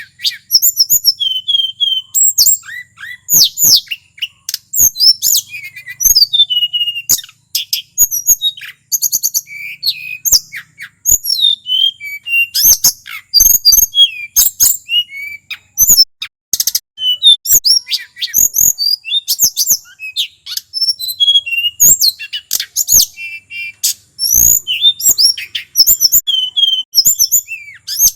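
Male tledekan gunung, a small forest flycatcher, singing nonstop: a rapid, varied run of short high whistled sweeps, chips and trills with hardly a pause. Sharp clicks are scattered through the song.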